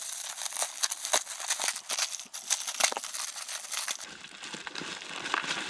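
Plastic packaging crinkling and crackling as it is slit and pulled open by hand, with many quick sharp crackles, growing quieter after about four seconds.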